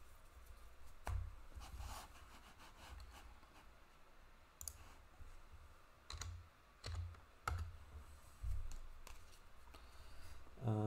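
Panini Prizm trading cards being shuffled and flipped through by hand, with scattered sharp clicks as the glossy cards snap and slide against each other.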